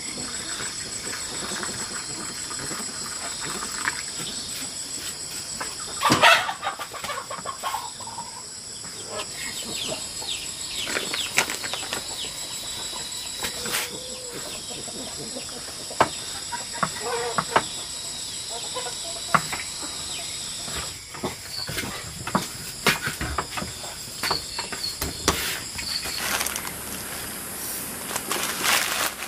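Chickens clucking, with bursts of wing flapping, over a steady high chirring of insects. The loudest burst comes about six seconds in.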